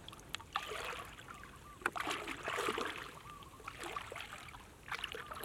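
Shallow muddy water splashing and sloshing in irregular bursts as a person wades and gropes through it with bare hands, with a few sharp clicks.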